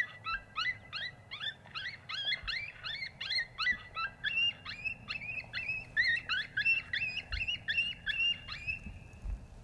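Electronic predator call playing an animal distress sound: a rapid, regular run of high, rising cries, about three a second, that starts abruptly and stops about nine seconds in.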